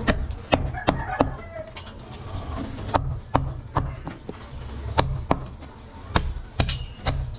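Heavy butcher's knife chopping goat meat on a round wooden chopping block: about a dozen sharp chops at an uneven pace, some in quick pairs.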